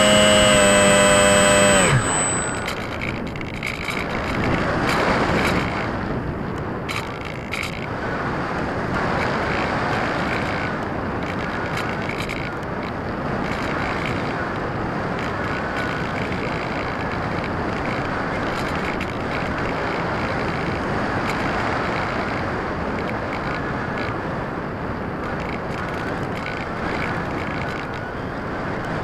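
An RC plane's motor and propeller whine steadily, then cut off about two seconds in. After that, wind rushes over the onboard action camera's microphone as the plane glides with the motor off.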